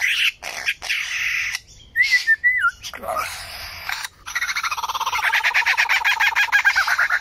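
Lyrebird calling in a varied run of sounds: harsh clicking, rasping notes, a short warbled whistle and a quick falling note, then a long, fast rattling trill for the last three seconds.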